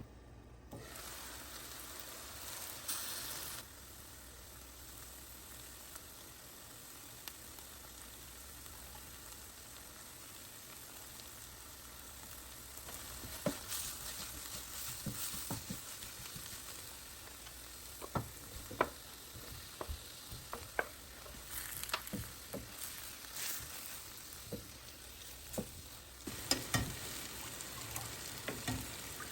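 Food sizzling as it fries in a pan. From about halfway through, a utensil repeatedly clicks and knocks against the pan as the food is stirred.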